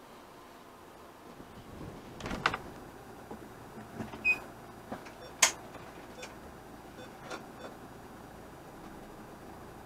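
Camper van cab with the engine running faintly as the van starts to creep forward. A few sharp clicks and knocks stand out, the loudest about two and a half and five and a half seconds in, with a short high beep about four seconds in.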